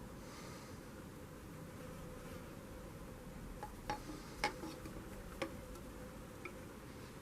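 Faint steady hum with four or five light sharp clicks, most of them about halfway through, like something small being handled.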